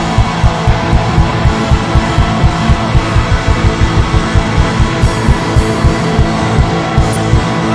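Live rock band music from a soundboard mix: guitar and full band over a fast, steady drum beat.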